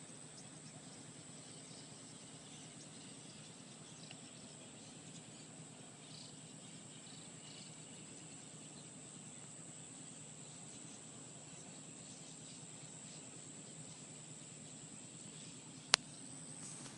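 Faint outdoor ambience with insects chirping and a thin, steady high whine over it. A single sharp click comes about a second before the end.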